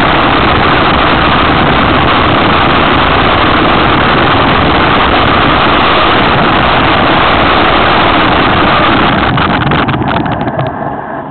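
Loud, steady rush of wind and rolling noise from a mountain bike's on-board camera at downhill speed, easing off near the end with a scatter of clicks and rattles.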